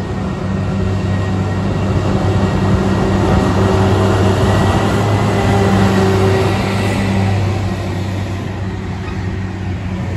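Stoneblower track-maintenance machine passing close by at low speed, its diesel engine humming steadily with rail noise. The sound builds as it comes near, is loudest around the middle, then fades as it moves away.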